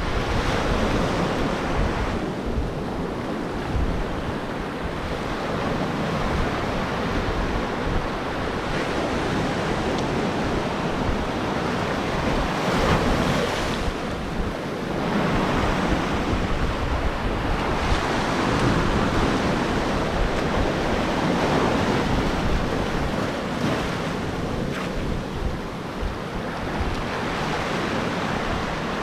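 Ocean waves breaking and washing on the shore, swelling and easing every few seconds, with wind buffeting the microphone.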